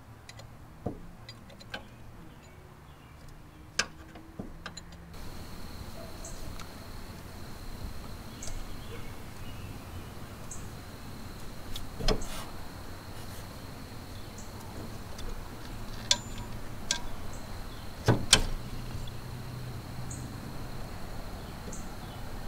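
Hand tools clinking against engine parts, a few sharp metallic clicks spread out, over a steady low background hum.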